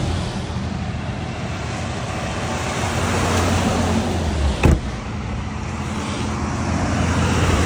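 Steady road noise of buses in a procession driving past, engines and tyres with a low hum, broken by one brief knock about four and a half seconds in.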